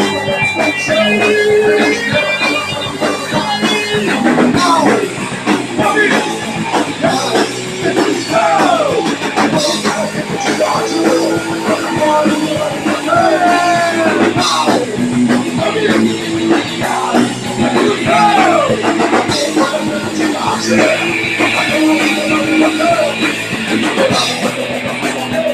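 A live punk rock band playing loudly: distorted electric guitar and drum kit, with pitch-bending lines over the top.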